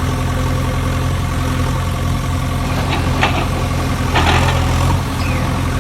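Engine idling steadily with a low, even hum, and two brief noisier rises about three and four seconds in.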